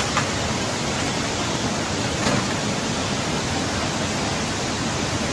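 Steady, loud rushing of water, an even noise that does not let up.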